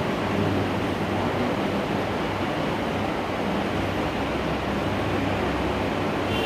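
Steady background hiss with a low hum under it, even throughout.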